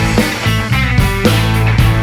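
Live full-band rock music with guitar and drums playing between sung lines.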